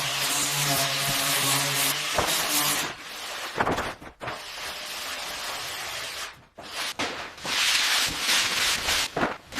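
Power tool running against the concrete slab during surface prep, a steady motor hum under a hissing grind, in several short clips joined by sudden cuts.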